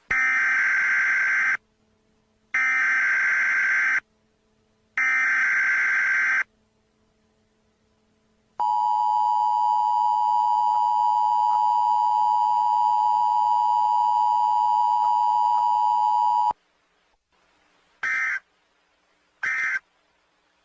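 Emergency Alert System severe thunderstorm warning tones: three screeching digital data bursts of about a second and a half each, then the steady two-note EAS attention tone held for about eight seconds, then three short blips of the same data sound near the end.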